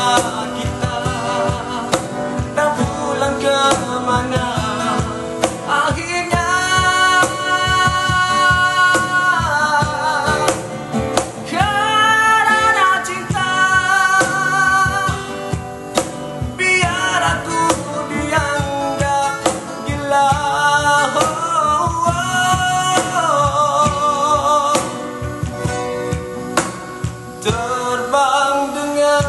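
A man singing a Malay pop-rock ballad over two strummed acoustic guitars, with long held notes in the vocal line.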